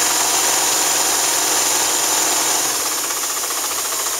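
Imperial electric sewing machine, driven by its Electro Home motor, running fast as it straight-stitches through about twelve folded layers of cotton chambray. About three seconds in it slows down and the steady stitching rhythm comes through.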